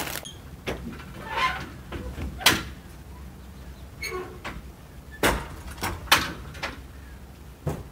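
Rear doors of a two-place horse trailer being unlatched and swung open: a string of sharp metal clanks and knocks from the latches and doors, the loudest about two and a half and six seconds in.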